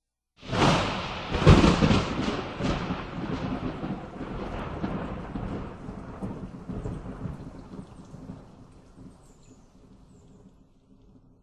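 A thunderclap: a sharp crack about a second and a half in, then long rumbling that fades away over the following nine seconds or so.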